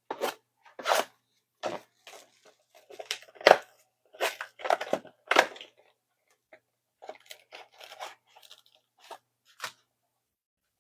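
Foil wrapper of a trading-card pack being torn open and crinkled by hand, in a series of short, irregular crackles, the loudest about three and a half seconds in.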